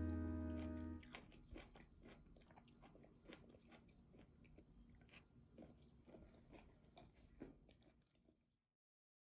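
Faint eating sounds: chewing and light clicks of wooden chopsticks against ceramic bowls, irregular and soft. Guitar music fades out in the first second, and the sound cuts to silence near the end.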